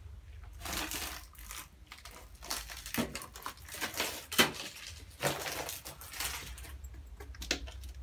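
Footsteps crunching and scuffing over grit and rubble on a concrete floor, in irregular clusters, with one sharper crack near the middle.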